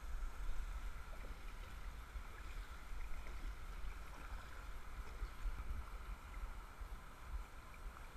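Steady rush of river water spilling over a low dam and through a chute, with a few light paddle strokes splashing from a kayak and a low rumble on the camera's microphone.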